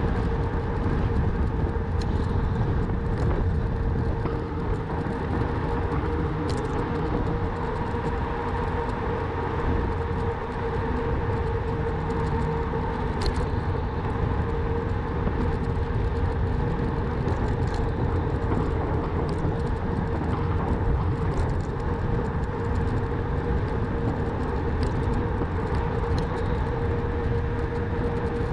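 Riding noise from a Rawbike electric bike: a steady rumble of tyres and wind with a steady motor whine over it, and a few faint ticks.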